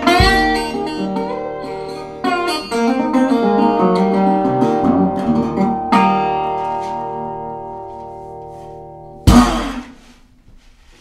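Metal-bodied resonator guitar played solo, picked phrases and chords closing the song, with the last chord ringing and fading from about six seconds in. Near the end one sharp, loud hit on the guitar, the loudest sound here, ends the piece.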